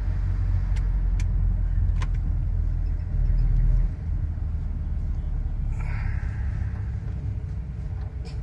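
Low rumble of road vehicle noise, heavier for about the first four seconds and then dropping suddenly, with a few faint clicks early on and a brief hiss about six seconds in.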